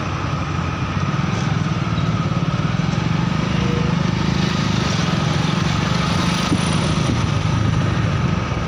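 Motorcycle engine running steadily under way, heard from the rider's seat with road noise.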